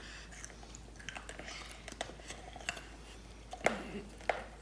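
Chewing and crunching of the hard, glassy candy coating of homemade candy apples, with scattered small clicks and a few sharper crunches in the second half.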